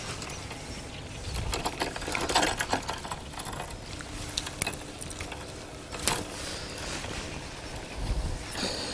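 Spinning reel on a fishing rod being cranked in, a fast mechanical whirr with scattered light clicks and rattles from handling the tackle, and a sharper click about six seconds in.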